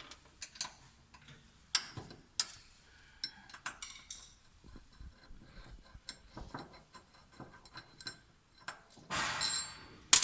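Scattered small clicks and metallic clinks of tools and machine parts being handled during bearing replacement, with a short scraping rustle and a sharp knock near the end.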